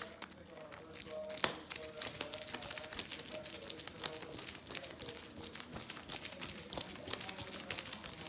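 Airheads taffy candy bar, partly in its wrapper, smacked rapidly back and forth against a hand: a dense stream of slaps and wrapper crinkling, with one sharp louder smack about a second and a half in.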